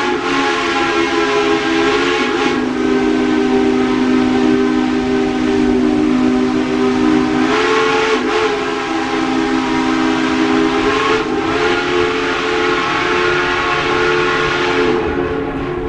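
Steam locomotive whistle blown long and continuously, several notes sounding together, its pitch shifting slightly a few times, over a steady hiss of steam.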